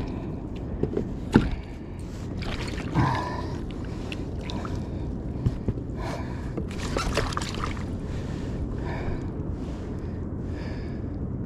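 Steady wind and water noise on a kayak action camera, with the angler's heavy breathing and short gasps, and a few sharp knocks of gear against the plastic kayak, the loudest about a second and a half in.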